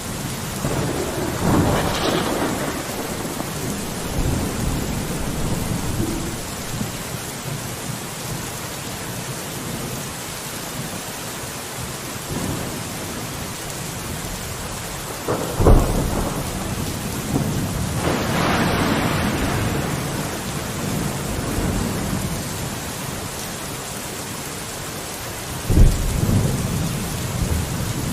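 Steady rain falling on a window, with thunder: a rumble about two seconds in, a sharp crack past the middle followed by a longer rolling rumble, and another sharp crack near the end.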